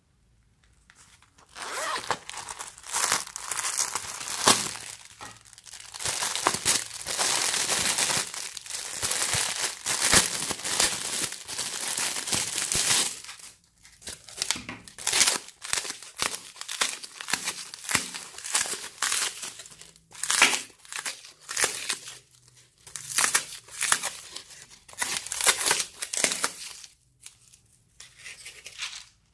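Wrapping crinkling and tearing as a packet is opened by hand, then a styrofoam block snapped and crumbled into pieces, a run of short separate breaks about one a second.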